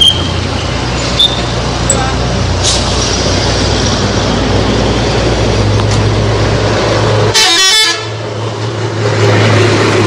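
Coach bus's diesel engine running close by with a steady low hum, and a bus horn tooting. A brief rustling knock interrupts about seven seconds in.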